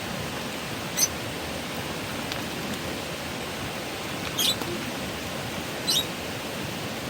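Peach-faced lovebird giving three short, shrill chirps that drop in pitch, about a second in, about four and a half seconds in and about six seconds in, over a steady rushing background noise.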